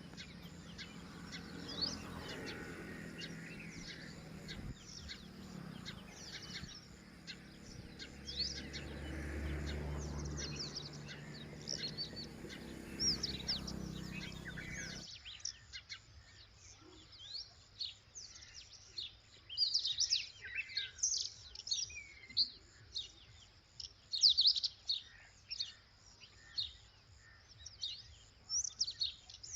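Red-wattled lapwings calling: many short, high chirps. There is a low steady background rumble under the first half, which cuts off abruptly midway, after which the chirps come thicker and louder.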